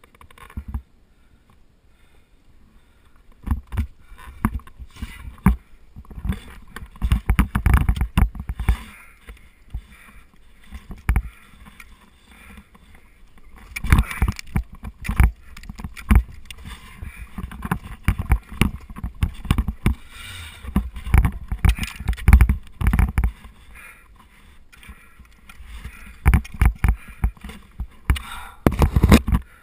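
Ice axes striking into a frozen waterfall in bursts of repeated sharp blows, with ice scraping and heavy knocks picked up by the body-mounted camera. It is quiet for the first few seconds, then the blows come in clusters separated by short pauses.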